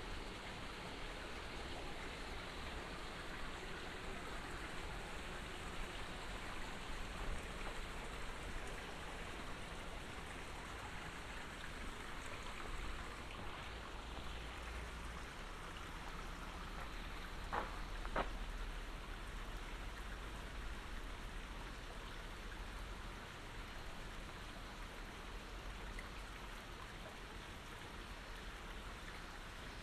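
Steady hiss of water, with two sharp clicks about half a second apart a little past halfway.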